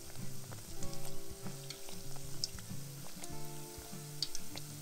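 Hot oil sizzling with small crackles as khajoor dough pieces deep-fry, a wire skimmer stirring through them, over background music with held notes.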